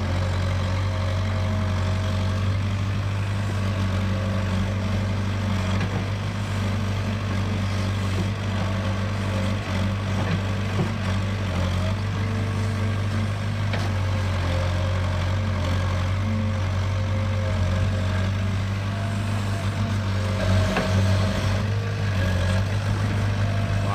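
Kobelco SK60-1 crawler excavator's diesel engine running steadily with a low, even hum, the machine working in water deep enough to cover its tracks.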